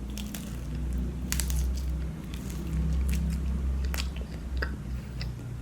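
A person biting into and chewing crispy breaded soy garlic chicken, with sharp crunches scattered throughout.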